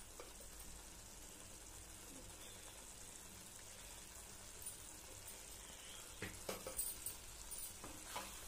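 Tomato chutney simmering softly in a pan, a faint sizzle with a few small pops from about six seconds in.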